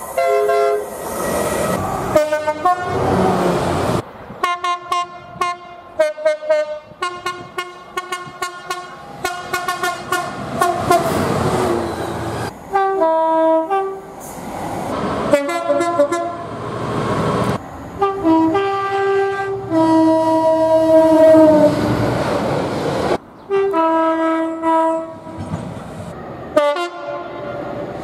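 Horns of several British trains, one after another: quick runs of short toots and some longer held blasts, stepping between a high and a low note, with the noise of passing trains between them.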